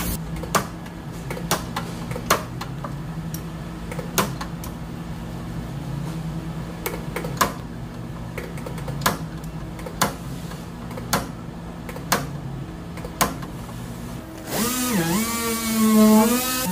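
Sharp knocks about once a second from a dent-pulling tool working the dented steel body panel, over a steady low hum. Near the end a random-orbit body sander starts up with a whine that dips and then rises to a steady pitch.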